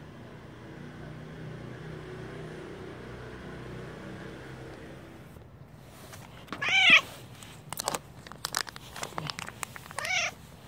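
Orange tabby stray cat meowing twice, a loud rising-and-falling meow about two-thirds of the way in and a shorter one near the end, as a chicken-breast snack pack comes out. Between the meows, short clicks and crinkles from the plastic wrapper being handled.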